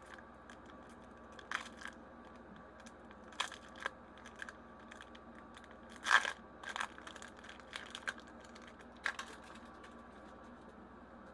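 Foil booster pack wrapper being crinkled and torn open by hand: a string of separate sharp crackles, the loudest about six seconds in.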